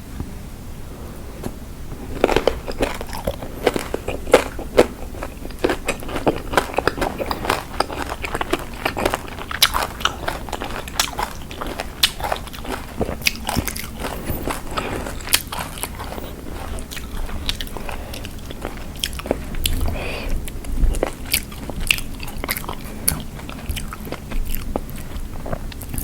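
Close-up eating sounds of spicy Thai lime salad: crisp, crunching bites and chewing with many sharp crunches, starting about two seconds in.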